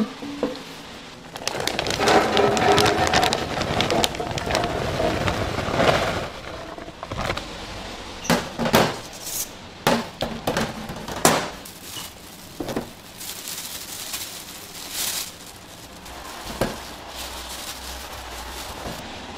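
Kitchen handling sounds on a stainless steel counter: a dense rustling crackle as sliced bacon is scraped off a wooden cutting board into a steel pan, then a series of sharp metal clanks as mesh pizza screens are set down.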